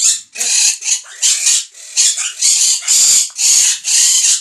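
A parrot screeching over and over: about ten loud, harsh calls in quick succession, roughly two a second.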